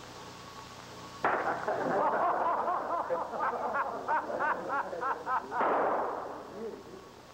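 Trick exploding cigars going off: a sudden hissing fizz with a string of quick warbling whistles, then a final burst of noise that dies away.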